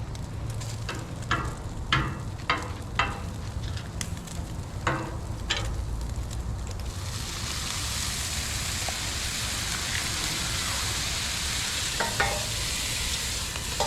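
Bacon sizzling on a Blackstone flat-top griddle. In the first few seconds a metal utensil clicks and scrapes on the steel plate, and about seven seconds in the sizzle swells into a loud, steady hiss.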